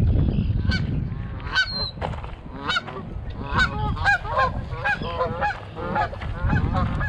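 Geese honking repeatedly, short calls coming one after another and more often in the second half, up to about two a second.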